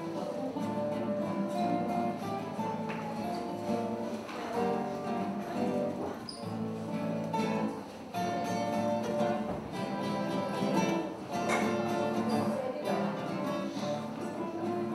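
Two acoustic guitars, one of them a nylon-string classical guitar, playing a picked instrumental piece together.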